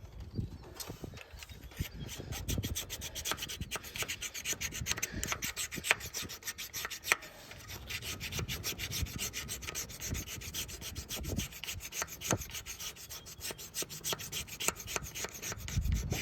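Hand file scraping back and forth over a thermostat housing gasket surface in rapid, steady strokes, smoothing away rough spots so the new gasket can seal against a leak.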